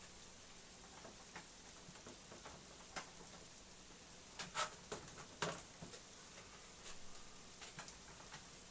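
Scattered keystrokes on the StarWriter Pro 5000 typewriter computer's keyboard, irregular and sparse, with two sharper key clicks about halfway through.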